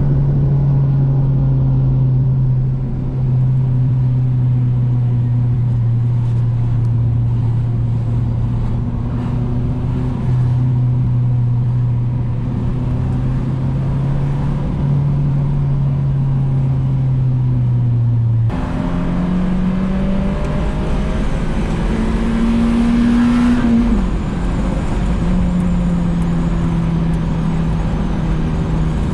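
Honda H22A four-cylinder engine in an Accord wagon running at steady cruising revs, its note holding level for long stretches and then stepping up and down a few times later on. It is driven gently, without VTEC engaged.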